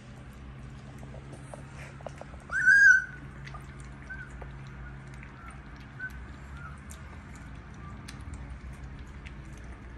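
Husky puppy giving one short, high-pitched squeal about two and a half seconds in, amid faint little squeaks and whimpers from the litter, over a steady low hum.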